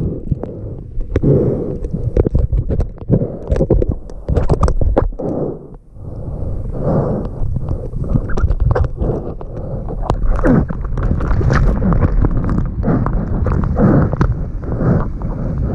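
Whitewater foam churning and splashing against an action camera held just above the water: a heavy, constant rumble broken by many sharp splashes. The sound drops away briefly about six seconds in, then the churning picks up again.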